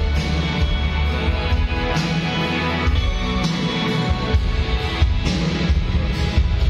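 Live band music played loud through a large PA system during a sound check, with heavy subwoofer bass under the band.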